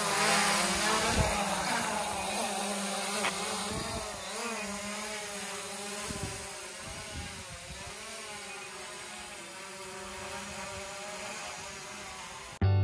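Quadcopter drone's propellers whining as it lifts off, the pitch wavering up and down as the throttle changes. It grows fainter as the drone climbs away, then cuts off abruptly near the end.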